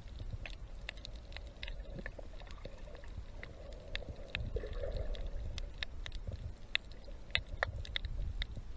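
Muffled water noise heard through a camera on a snorkel dive: a steady low rumble with sharp clicks scattered throughout, and a short gurgle about halfway through.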